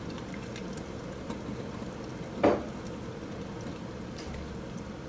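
Bacon and a little hot water sizzling and bubbling steadily in a wok under a wooden lid, with faint scattered ticks and one sharp pop about halfway through.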